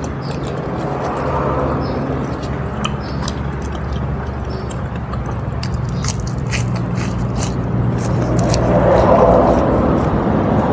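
A person biting and chewing crunchy food close to the microphone, with sharp crunching clicks that come thickest from about five to nine seconds in. A steady low hum runs underneath.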